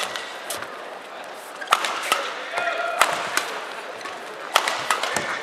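Badminton rally: sharp cracks of rackets striking the shuttlecock, four hits about one and a half seconds apart, with short squeaks of shoes on the court and crowd murmur behind.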